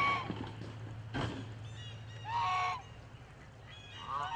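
Goose honking: three loud honks, one at the start, one about two seconds in and one near the end, with a single sharp knock about a second in.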